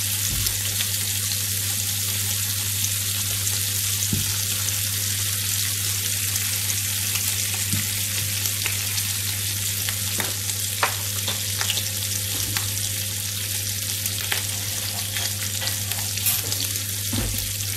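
Bacon strips sizzling in a nonstick frying pan: a steady hiss with scattered small pops of spitting fat.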